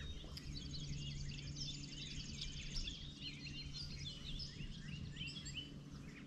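Several songbirds chirping and singing, with a rapid high trill from about half a second in that lasts a couple of seconds. Beneath them runs a low rumbling noise and a faint steady low hum.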